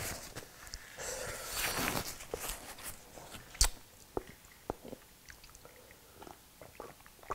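Quiet eating sounds: chewing and a paper napkin rustling, then a single sharp knock about three and a half seconds in as a glass mug of iced tea is picked up off the table, followed by a few faint clicks.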